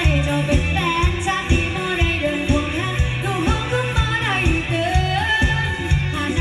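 A Thai pop song with a sung vocal over a steady, bass-heavy beat, played through a loudspeaker under test.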